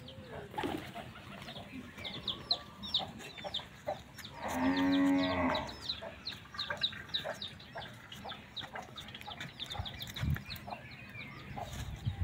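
One long moo from a cow, lasting about a second and a half near the middle. Small birds chirp rapidly and steadily throughout, and a couple of low thumps come near the end.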